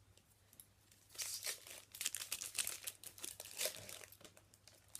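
Trading card pack wrapper crinkling and tearing as a pack is opened, starting about a second in with irregular crackly rustles.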